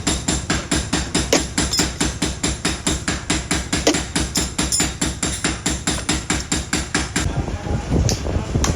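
Rapid, evenly spaced hammer blows on metal, about five a second, as in forging a sickle blade. About seven seconds in the blows stop and give way to a rougher, steadier clatter with a couple of louder knocks.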